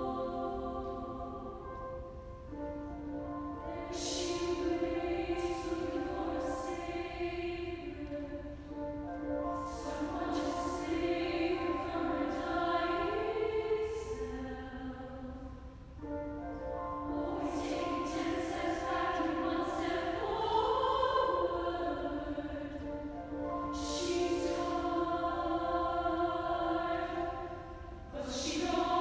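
A girls' choir singing a slow piece in a church, in long held phrases with brief breaks and crisp consonant sounds between them.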